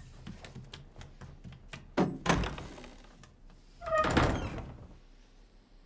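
Light knocks, then two heavy thuds: a sharp one about two seconds in and a longer one about four seconds in.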